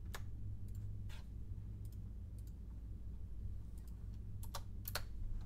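A handful of scattered computer mouse clicks and keyboard key presses, a few separate taps spread over several seconds, over a steady low hum.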